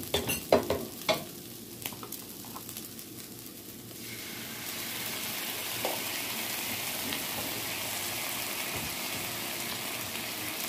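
A wooden spatula knocks and scrapes in a skillet of fried rice during the first second or so. About four seconds in, a steady sizzle rises and holds as soy sauce mix fries in the hot pan.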